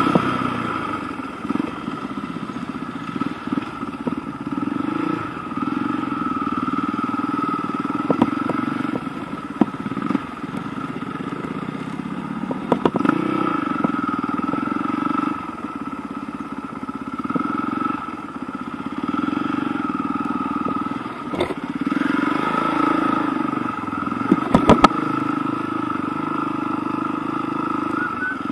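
Enduro motorcycle engine running at low speed, its note swelling and dipping every few seconds as the throttle is opened and closed. A few sharp clicks and knocks come through, strongest near the end.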